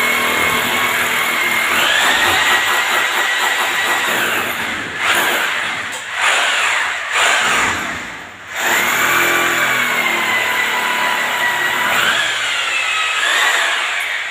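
Corded electric drill boring into the tiled masonry wall, its motor whine dipping and rising in pitch as it loads up. About halfway it stops and is triggered in several short bursts, then runs steadily again.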